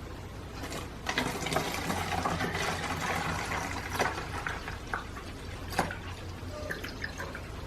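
Honey, lemon juice and vodka mixture being poured into a bottle, a liquid fill starting about a second in and running for a few seconds. A couple of sharp knocks follow.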